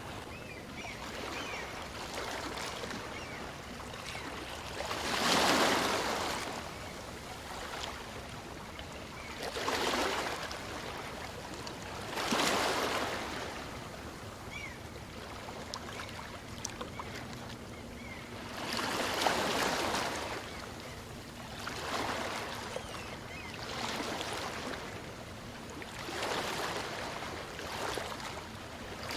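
Small waves of a calm sea breaking and washing up on a beach, each surge rising and falling back every two to five seconds, about seven in all.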